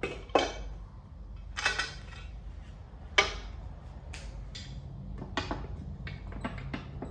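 A string of separate metallic clinks and knocks, about a second apart, from bolts and the steel upper muffler plate being handled and fitted to the underside of a lawn mower deck.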